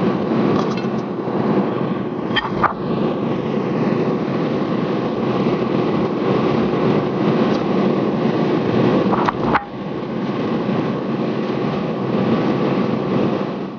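Steady whirring drone of a running kitchen fan. A few light clicks come through about two and a half seconds in and again about nine and a half seconds in.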